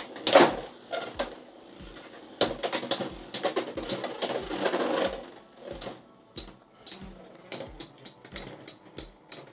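Beyblade X spinning tops clashing in a plastic stadium: a rapid clatter of hard plastic and metal hits, densest in the middle, then thinning to scattered clicks and taps.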